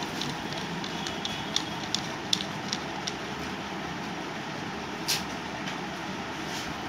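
Steady hiss with scattered light clicks as a wire is worked against the binding post of a transistor inverter; one sharper click comes about five seconds in.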